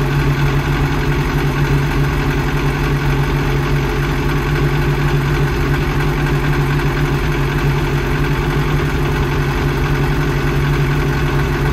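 The camper truck's engine running at a steady speed, an even hum that holds the same pitch throughout, while a battery tester checks that its alternator is charging.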